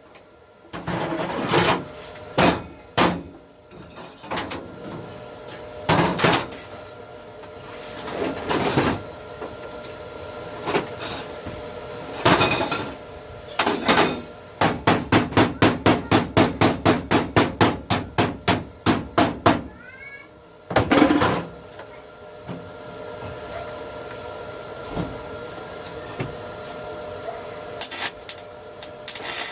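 Hammer blows, at first scattered single strikes, then a fast even run of about four strikes a second for several seconds past the middle, then a few more scattered strikes.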